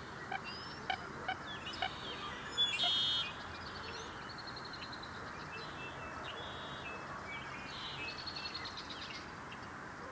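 Several songbirds singing, a spring morning chorus of short chirps and trills, loudest and busiest in the first three seconds and sparser after. A steady background rush of noise lies under the birdsong.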